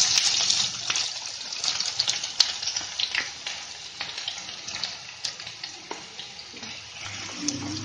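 Chopped onions sizzling as they go into hot oil in a nonstick pan, with light clicks and scrapes of a plate edge pushing them in. The sizzle is loudest at the start and gradually dies down as the onions cool the oil.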